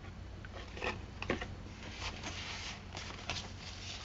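Paper rustling and light tapping as journal pages and paper ephemera are handled and turned, in short swishes and clicks.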